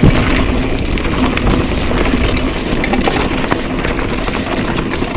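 Mountain bike riding down a rough gravel trail: wind rushing over the action camera's microphone, with tyres crunching on the stones and the bike rattling in many quick clicks.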